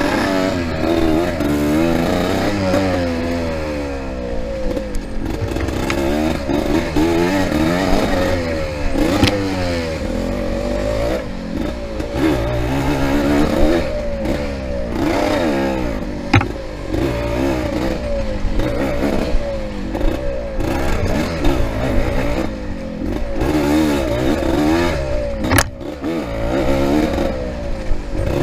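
Yamaha IT200 two-stroke enduro motorcycle ridden hard off-road, its engine revving up and dropping back over and over as the throttle opens and closes. A few sharp knocks and clatters cut in, at about 9 s, 16 s and 26 s.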